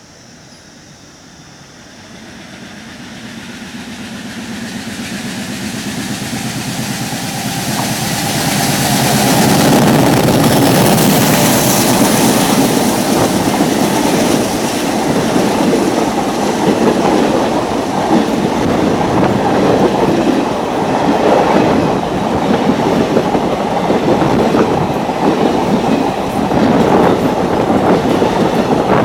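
Passenger train hauled by a WDM-3A diesel locomotive, approaching and passing. The sound grows steadily louder over the first ten seconds or so as the train nears, then the coaches' wheels clatter on steadily over the rail joints.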